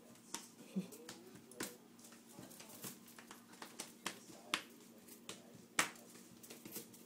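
Sock-clad feet tapping and stamping tap-dance steps on a hard floor: irregular sharp slaps, about one or two a second, with one louder strike near the six-second mark.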